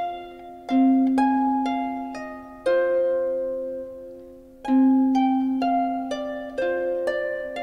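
Background music of plucked-string notes and chords, each plucked sharply and left to ring and fade, a new one every second or two.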